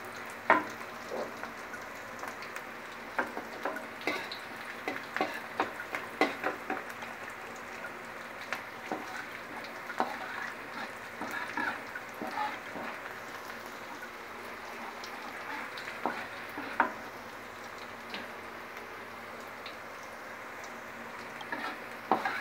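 Sliced shallots and garlic sizzling steadily in hot oil in an aluminium wok while they fry until fragrant. A metal spatula scrapes and clicks against the wok as they are stirred, in irregular clusters.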